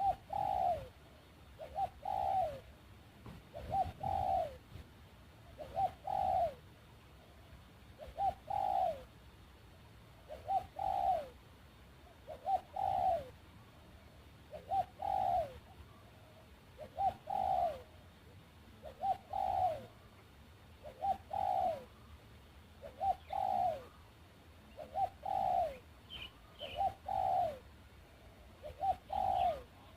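A dove cooing the same two-part phrase over and over, about every two seconds: a short note, then a longer one that falls in pitch. A few faint, high chirps from another bird come in near the end.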